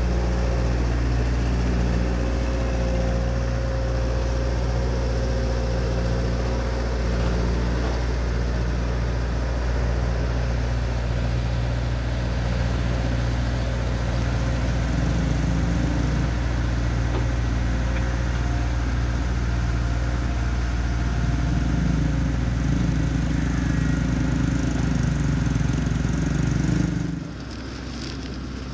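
Diesel engine of a Bomag single-drum road roller running steadily close by, a deep, even machine hum. The sound drops sharply near the end.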